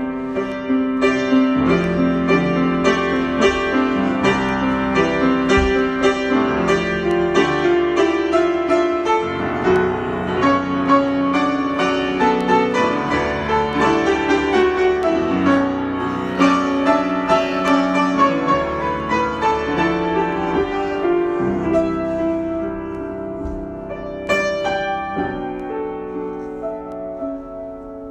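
Solo piano improvisation with full chords under a moving melody line. About three-quarters of the way through it thins out and gets quieter, with a single sharp accented chord near the end.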